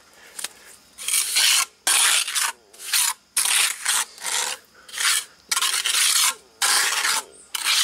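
A hand trowel scraping and spreading wet rapid-set cement patch over a concrete patio surface, in about eight quick strokes with short pauses between them.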